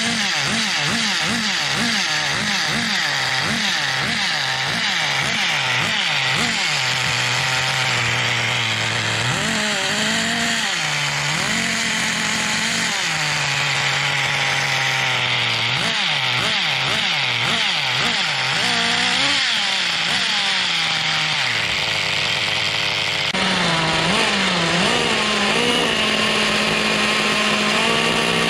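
Thunder Tiger Pro-18BXS two-stroke nitro glow engine of an RC monster truck running, revved up and down in quick throttle blips about twice a second, then held at steady speeds between further revs. The engine is running again after five years unused.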